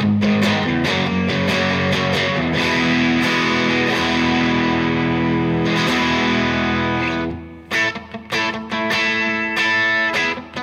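Electric guitar (a Maybach Teleman T61, Telecaster-style) played through a tube combo amp with a little overdrive: chords left ringing for about seven seconds, then short, choppy strummed chords.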